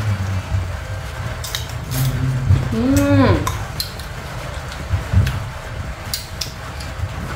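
Eating sounds: slices of unripe green mango dipped into and knocked against a ceramic bowl of sauce and chewed crisply, heard as scattered clicks and taps. About three seconds in, a short hum from a voice rises and falls.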